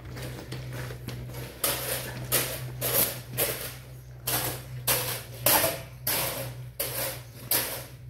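A steel shovel working freshly poured wet concrete over rebar mesh, its blade jabbed and scraped through the mix in a steady rhythm of nearly two strokes a second, starting about one and a half seconds in. A steady low hum runs underneath.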